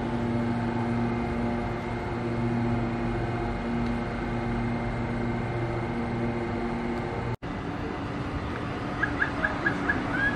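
Steady electric hum with several steady tones from an Auckland electric multiple-unit train standing at the platform. It cuts off abruptly about seven seconds in, giving way to general station noise, and near the end comes a quick run of about six short high beeps.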